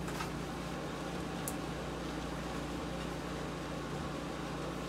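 A 5,000 BTU window air conditioner running: a steady fan rush over a low hum, with a faint tick or two near the start.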